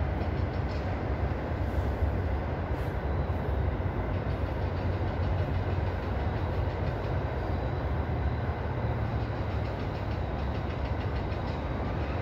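A steady low rumble with an even hiss over it; no single knock or shout stands out.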